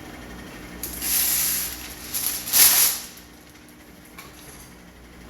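Wax paper being pulled and torn, heard as two short rushing noises about a second and a half apart, the second louder.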